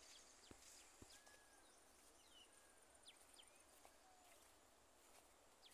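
Near silence: faint open-air ambience with a few soft, short bird chirps and thin whistles scattered through it.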